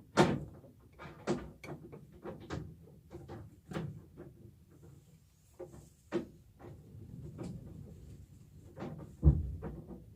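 Irregular knocking and clattering of hard objects being handled, with a sharp louder knock just after the start and another about nine seconds in.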